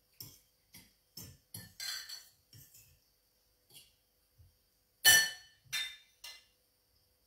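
A utensil clinking and scraping against a ceramic bowl while stirring food in it: a run of light taps, then three louder clinks about five to six seconds in.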